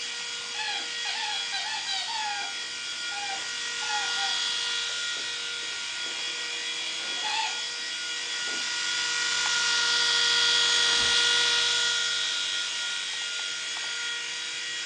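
Air Hogs Havoc Heli toy RC helicopter hovering, its small electric motors and rotors giving a steady high whine that grows louder for a few seconds about ten seconds in, as it comes closer.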